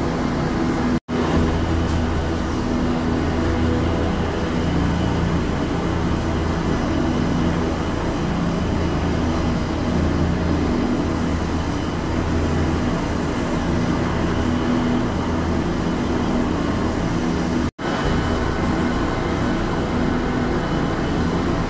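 Police AgustaWestland helicopter running on the ground with its rotors turning: a steady turbine and rotor rumble, heard through glass. The sound cuts out for an instant twice, about a second in and again near the end.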